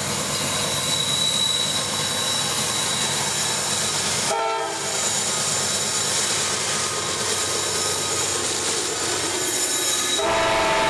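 CSX grain train passing close by, its lead GE AC4400CW and trailing EMD SD50 diesel locomotives running under load, with the rumble of wheels on rail. A locomotive horn sounds a brief chord about four seconds in and again near the end.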